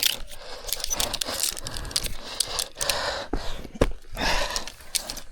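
Fishing gear being packed up in a hurry: irregular clicks, knocks and rustling swishes of rods, cases and bags being handled.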